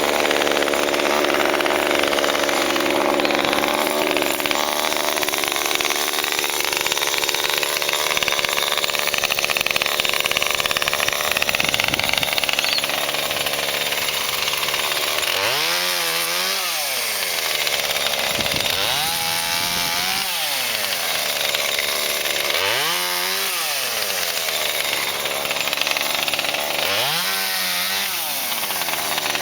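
Cheap two-stroke petrol chainsaw running hard, cutting through the trunk of a fallen peppermint tree, its engine note sagging and climbing under load. From about halfway it is revved up and down four times, each rev lasting a couple of seconds.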